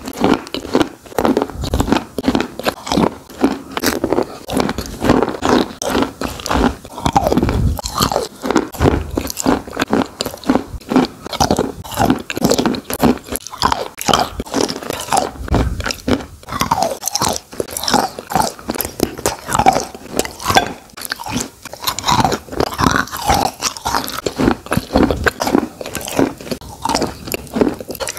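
Close-miked biting and chewing of wet chalk chunks coated in a brown paste: a dense run of crunches and crackling clicks.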